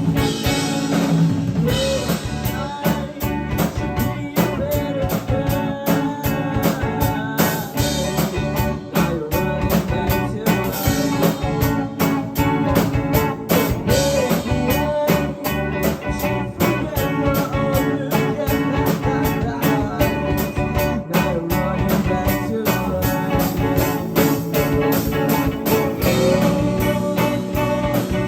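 Live band music: guitar and drum kit playing steadily, with drum hits keeping an even beat.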